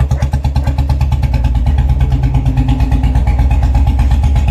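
Royal Enfield Bullet 350 single-cylinder engine running steadily with an even, pulsing exhaust beat. The exhaust bend pipe has been refitted with its inner seal, and no leakage noise is coming from the joint.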